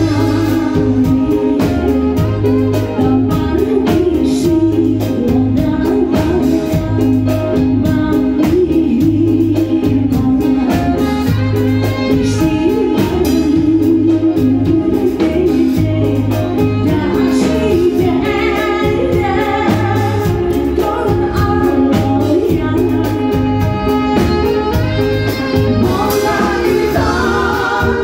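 Live band music played loud through a PA system: an electronic keyboard with a steady bass beat, a saxophone, and a woman singing into a microphone.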